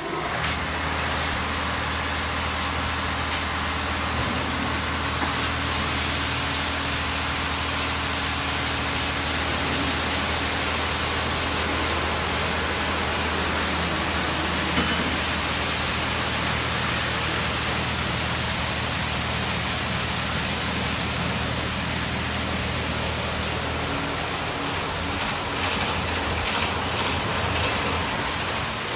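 Automatic tunnel car wash running: a steady rush of spraying and cascading water over a low, steady hum of the machinery's motors and pumps, the hum changing near the end.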